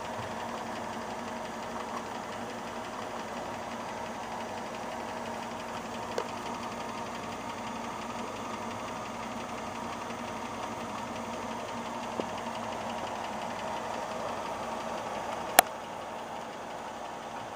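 D21 model steam engine running steadily, a fast, even beat of the small cylinder and flywheel with a steady hum. There are two faint ticks, and a sharp click about two seconds before the end.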